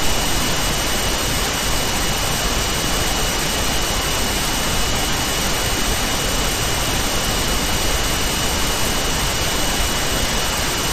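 Steady, even hiss of recording noise with a thin high-pitched whine running through it, and a single click right at the start.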